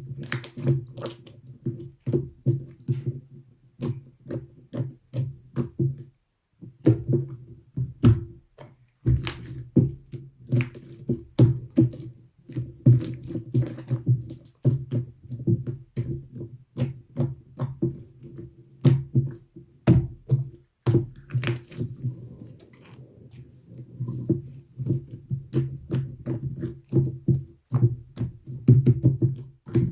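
Slime being squished and poked by hand, giving a fast, uneven run of crackling clicks and pops. There is a brief pause about six seconds in.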